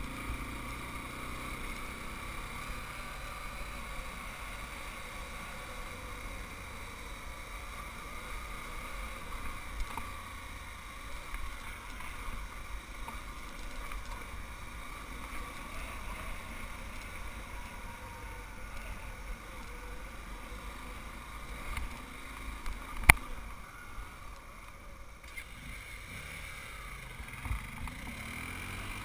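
Small off-road vehicle engine running steadily at low speed on a rough trail, with low rumble under it and one sharp click about 23 seconds in.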